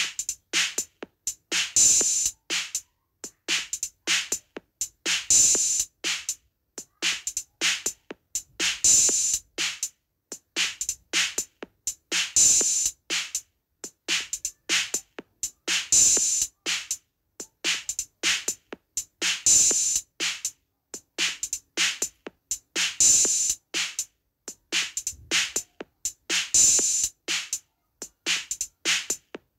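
Looped drum rhythm for Turkish halay dancing: quick sharp strokes with little deep bass, the same pattern coming round about every three and a half seconds with a loud accented hit at the start of each cycle.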